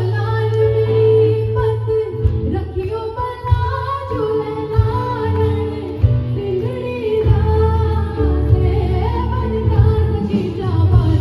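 A song: a woman singing a melody with sliding, ornamented notes over instrumental accompaniment with a steady bass.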